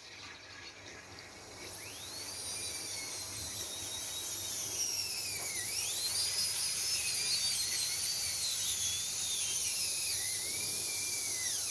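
High-speed dental air-turbine handpiece running, presumably with its freshly replaced cartridge: a very high steady whine, with lower tones that rise and fall as the turbine's speed varies. It starts faint and grows louder over the first two seconds.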